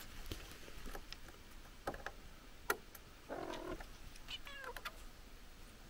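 A cat meowing faintly: a short sound about three and a half seconds in, then a meow that falls in pitch. A couple of faint clicks come before it.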